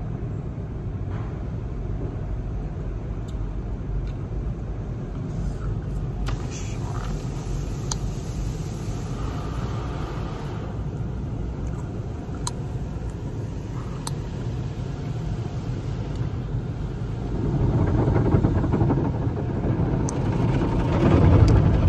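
Automatic car wash machinery heard from inside the car: a steady low rumble with a few faint clicks, and a louder rush of washing that swells about three-quarters of the way through.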